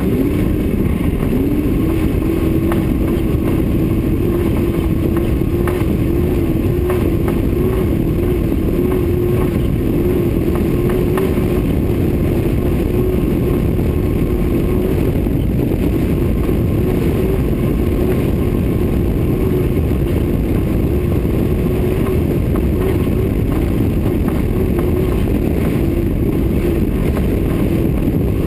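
Off-road race car's engine running hard at fairly steady revs, its pitch wavering slightly, under a heavy rumble of wind and rough dirt track on the hood-mounted camera.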